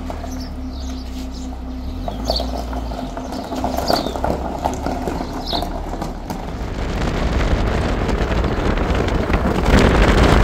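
Small birds chirping over a low steady rumble; about halfway through, a rushing noise comes in and swells louder toward the end.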